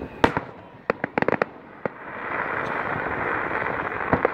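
Aerial fireworks shells bursting: a string of sharp bangs, several in quick succession, over the first two seconds. About two seconds of dense, continuous crackling follow, with a couple more bangs near the end.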